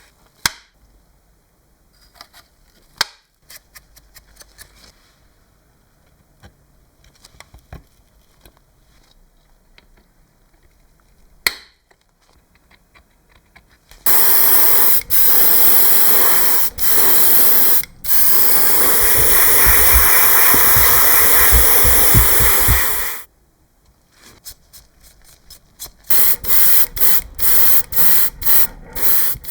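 Pressurised spray hissing: one long pass of about nine seconds broken by three short gaps, then a quick run of short bursts near the end. A few sharp clicks come before the spraying.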